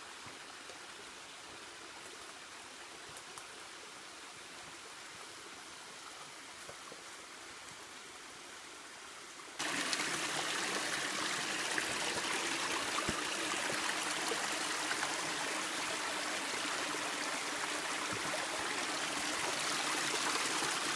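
Shallow rainforest creek trickling and running over rock slabs. A little under halfway through it suddenly becomes much louder and closer, the water running right beside the microphone.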